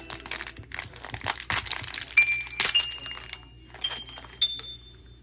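Thin foil blind bag crinkling and tearing as it is pulled open by hand, a dense run of crackles. From about two seconds in, faint high held notes stepping upward in pitch, likely from the video's background music.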